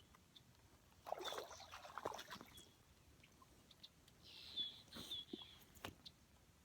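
Short, high bird chirps repeating now and then, over two spells of rustling handling noise with a couple of sharp clicks.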